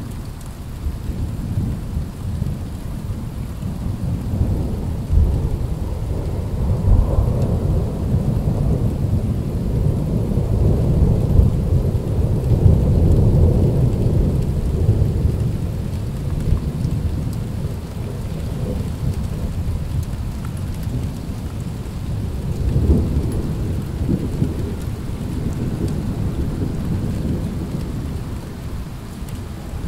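Thunder rolling: a long, deep rumble that builds a few seconds in, peaks in the middle and fades, then swells again about two-thirds of the way through.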